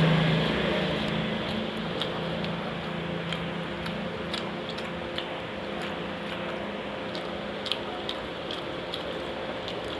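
Chewing: small wet clicks and smacks of someone eating, scattered irregularly over a steady background hiss and hum. A passing motor vehicle fades away in the first second or so.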